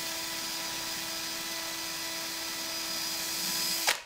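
Electric drill running steadily with a small bit in the keyway of a Schlage deadbolt, grinding at the hardened anti-drill pins without breaking through. The drill stops abruptly at the very end.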